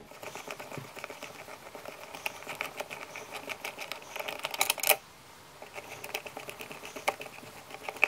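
Flathead screwdriver backing out the mounting screws of a paddle light switch from its electrical box: a rapid run of small clicks and scrapes of metal on metal, with a louder clatter just before five seconds and a short pause before the ticking resumes.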